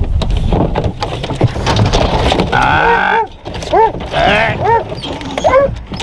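Deer hounds bawling on a hot trail: a long drawn-out bay about halfway in, then short rising-and-falling bays repeated in quick succession. A low rumbling noise comes before them.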